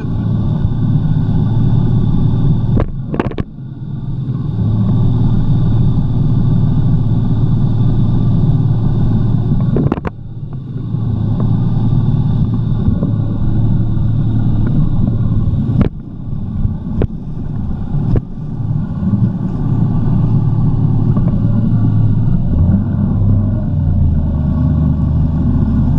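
Jet ski engine running under way with a steady hum, dipping in loudness a couple of times, with a few sharp knocks and the engine note dropping lower near the end.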